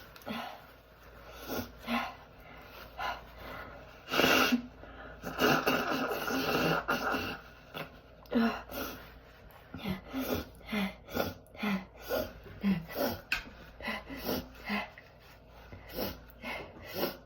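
A woman sneezing again and again, high-pitched sneezes brought on by allergies, with a longer blow of the nose about five seconds in and a quick run of short sneezes and sniffs in the second half.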